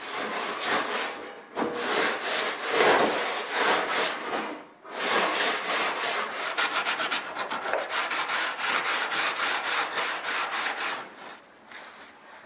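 Edges of a thin aluminium sheet (a 0.032-inch false-spar blank) being dressed by hand, with rasping back-and-forth strokes. The first strokes are longer and slower; about halfway through they turn quick and even, about five a second, and they fade near the end.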